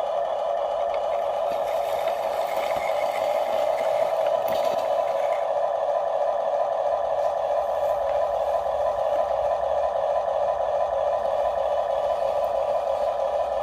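Small electric gear motor of a toy RC excavator running with a steady whine, holding one pitch throughout.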